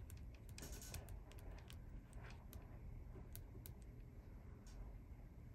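Faint handwriting sounds of someone writing a name down: a short scratchy rustle about a second in, then a few scattered light clicks and taps.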